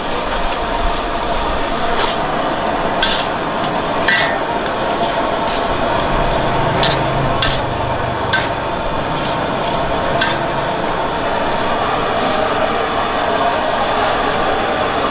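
A metal cooking utensil knocking and scraping against a pan or wok: about six sharp, irregular clinks over a steady background noise.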